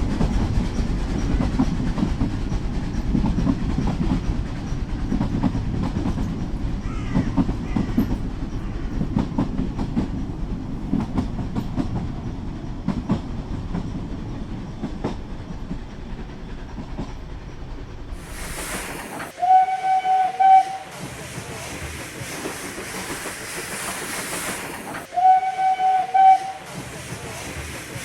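H0-scale model train running on its track: a steady low rumble from the motor and wheels, with quick light clicks over the rail joints. About two-thirds of the way in the rumble gives way to a hiss, and two short horn blasts sound about five seconds apart.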